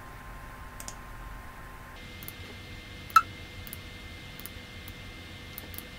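Computer mouse clicks, sparse and light, over a faint steady hum, with one sharper, louder click about three seconds in.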